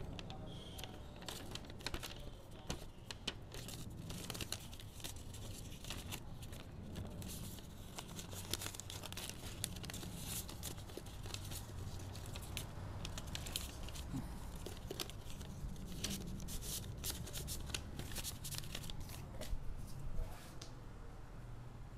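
A sheet of paper handled in the hands, crinkling and rustling as a run of small irregular crackles, busiest in the second half, over a faint steady low hum.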